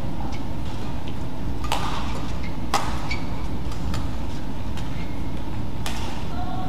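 Badminton singles rally: sharp racket strikes on the shuttlecock about a second apart, over a steady hum from the arena.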